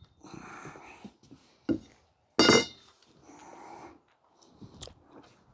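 Metal greenhouse frame pipes clinking together as they are handled and laid out: one loud ringing clink about two and a half seconds in, a few lighter knocks, and rustling handling noise between.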